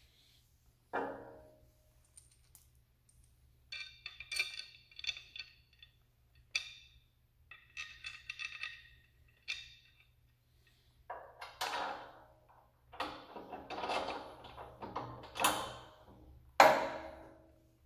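Metal and plastic parts of a tow-behind aerator-spreader being handled during assembly. There is a thunk about a second in, then light metallic clicking with a faint ring. Later a flat metal bar clatters and scrapes against the frame, and a sharp knock near the end is the loudest sound.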